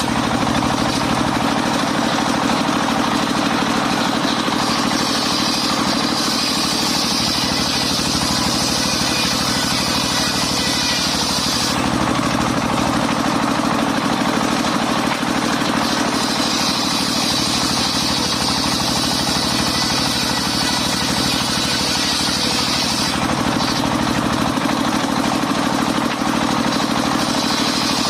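Engine of a portable circular sawmill running steadily. A higher hiss joins it in three stretches of several seconds each, as the saw works.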